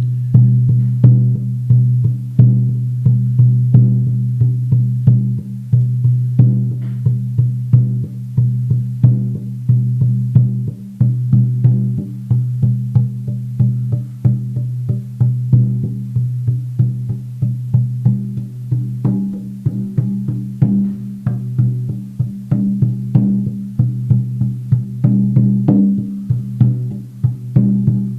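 A 16-inch horse skin shamanic frame drum on an ash frame beaten steadily with a soft beater, a continuous run of even strokes. A deep ringing drone carries between the strokes.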